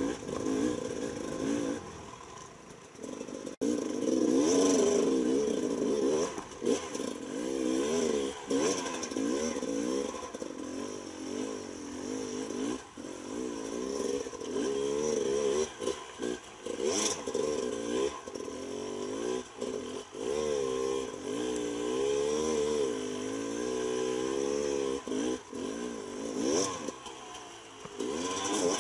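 Beta 300RR single-cylinder two-stroke enduro bike's engine revving up and down over and over as it is ridden, the throttle constantly opened and closed, with a brief quieter stretch in the first few seconds.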